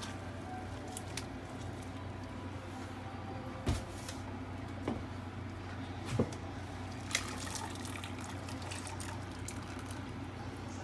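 Fish stock draining and dripping through a metal mesh sieve into a pan as sea-bream bones and kelp are strained, with four short knocks of the sieve and pot, over a steady low hum.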